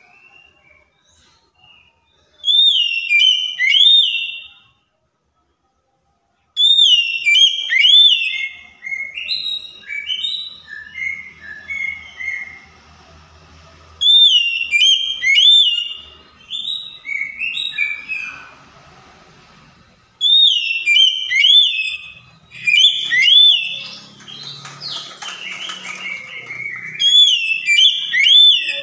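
Oriental magpie-robin (kacer) singing: loud, clear whistled phrases that rise and fall, coming in bursts every few seconds, each trailing off into lower descending notes. A harsher, scratchy stretch of song comes late on.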